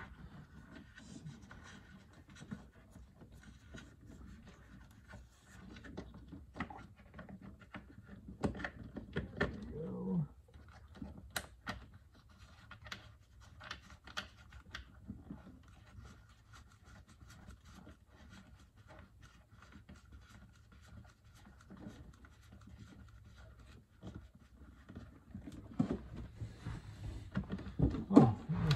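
Scattered small scrapes, clicks and taps of hands fitting a switch into a fibreglass boat dash panel and turning its back nut from behind, with clothing rustle. The handling gets louder about eight to ten seconds in and again near the end.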